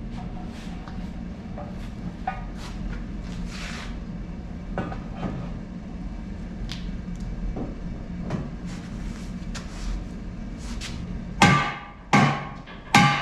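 Light clicks and knocks of steel parts being handled over a steady low shop hum, then near the end three hard hammer blows on steel, each ringing out, a little under a second apart.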